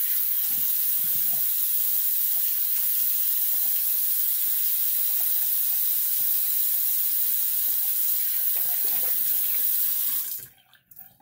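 Bathroom sink tap running steadily while shaving lather is rinsed off the face. The water is shut off abruptly near the end.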